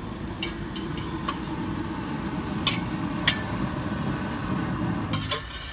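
Sharp metal clinks of a steel ladle and utensils at a street-food griddle, a handful scattered through and a quick cluster near the end, over a steady low noise.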